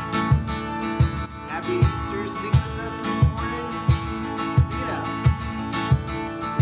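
Music: strummed acoustic guitar over a steady low beat, about three beats every two seconds.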